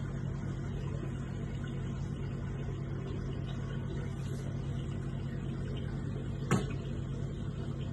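Steady low mechanical hum with one sharp click about six and a half seconds in.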